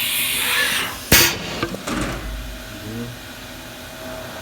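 Haas VF-4 CNC mill's pneumatic tool-release mechanism cycling: a hiss of air stops, then a sharp metallic clunk about a second in, followed by a couple of lighter clicks and a low rumble.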